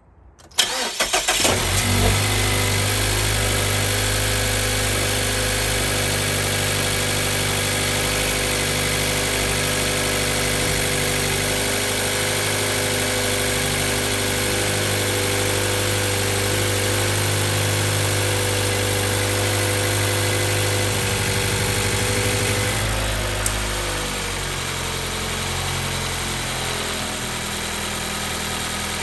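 A 2014 Mazda 3's 2.0L four-cylinder engine is cranked and starts cold, then settles into a steady fast idle. About three-quarters of the way through, the idle drops to a lower, quieter note. The engine has a stored cylinder 2 misfire code (P0302).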